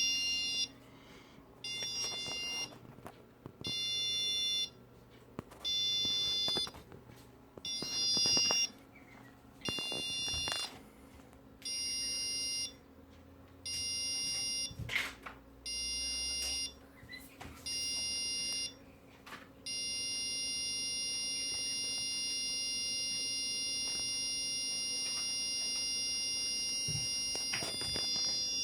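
Electronic alarm buzzer on an Arduino alarm circuit sounding a high, shrill tone in one-second beeps about every two seconds, ten times, then holding one continuous tone for the last nine seconds. A few faint clicks fall between the beeps.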